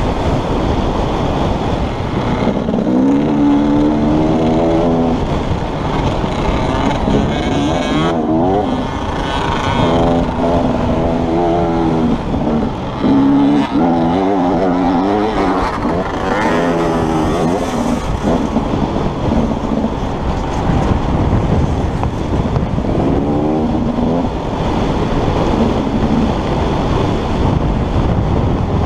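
Husaberg dirt bike engine heard from a helmet-mounted camera while riding a trail: its revs repeatedly climb, then drop and pick up again as the rider accelerates and shifts. Steady rumble and wind noise run underneath.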